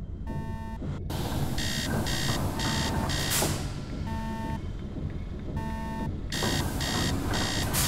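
Sound effects for a toy factory machine running: a steady low mechanical rumble with electronic beeps and buzzes. A short low buzz comes three times, with runs of higher beeps in between and a longer high beep near the end.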